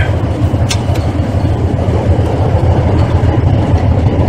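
Tank engine running, a steady, heavy low rumble.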